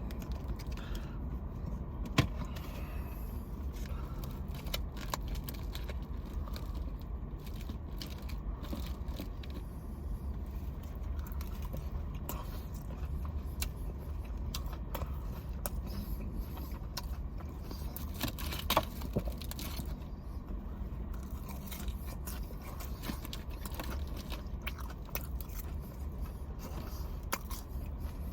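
Close-up eating sounds: chewing cheese fries, with scattered small clicks and rustles from handling the food and its container, and a couple of sharper clicks. A steady low hum sits underneath.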